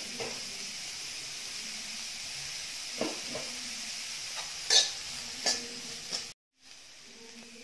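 Chopped cabbage, carrot and beans sautéing in oil in a kadai, sizzling steadily, as a steel spoon stirs them and scrapes and knocks against the pan a few times about halfway through. The sound cuts out for a moment near the end and comes back fainter.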